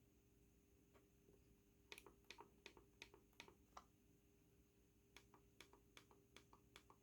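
Logitech M590 Silent mouse buttons clicking: faint, muted clicks in press-and-release pairs, in two runs of about half a dozen each with a pause of over a second between them.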